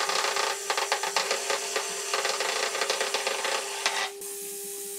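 Electric hand blender with a whisk attachment whipping foamy egg whites in a tall beaker, its motor giving a steady whir. For about the first four seconds a rapid clatter of clicks runs over it, then only the whir is left.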